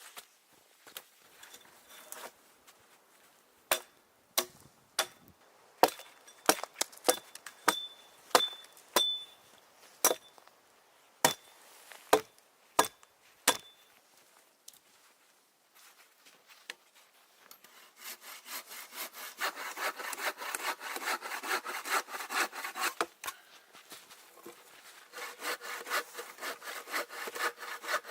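A string of sharp wooden knocks and cracks, then, after a pause, a hand saw cutting through wood in quick, even back-and-forth strokes.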